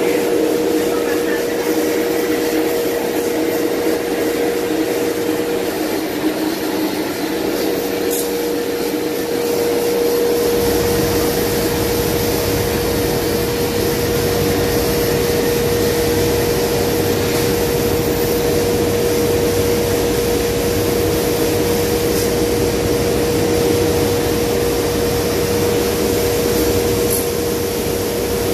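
CNC router spindle driving a sanding wheel across a board's surface: a loud, steady machine noise with a constant whine. The low rumble grows about ten seconds in.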